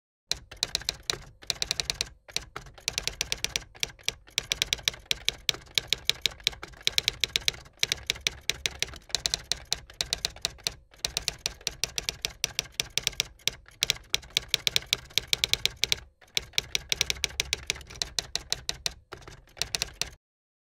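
Typewriter keys clacking rapidly as a typing sound effect, with a few brief pauses between runs of keystrokes.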